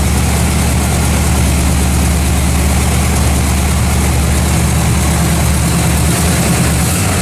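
Carbureted V8 engine running steadily at idle, freshly installed in the car and on one of its first runs.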